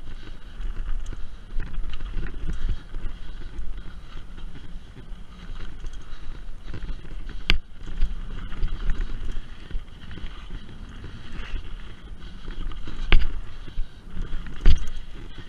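Mountain bike descending a dirt flow trail at speed: a steady rumble of the tyres on dirt and loose stones with wind on the microphone. Three sharp knocks as the bike jolts over bumps, one about halfway through and two near the end, the last two the loudest.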